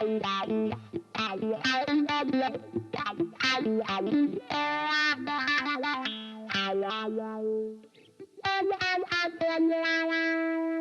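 Fender Stratocaster electric guitar played through distortion and effects pedals: a quick run of picked notes, a short break about eight seconds in, then a long held note ringing out near the end.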